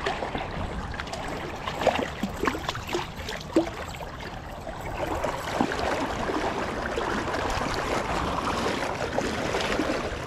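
River water splashing and sloshing around a wading angler's legs: a few sharp splashes in the first few seconds, then a steady wash of moving water as he wades through the current.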